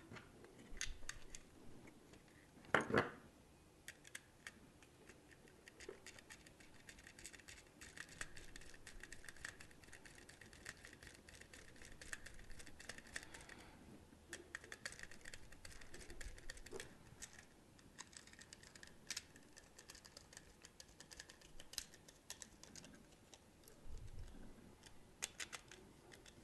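Small screws being turned by hand with a screwdriver into a plastic bracket and nut: faint scratchy clicks and ticks of the screwdriver tip and screw, with a louder knock about three seconds in.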